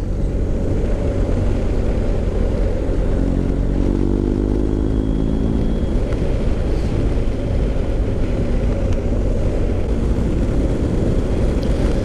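BMW R 1250 GS Adventure's boxer-twin engine running under way through a newly fitted Remus Hawk aftermarket silencer, over a steady low rush of riding noise. About three seconds in, the engine note stands out clearly for a few seconds, holding a steady pitch.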